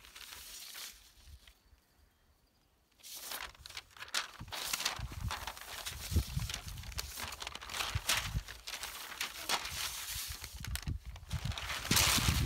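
Sheets of paper rustling and crinkling as they are handled and swapped, starting about three seconds in and loudest near the end.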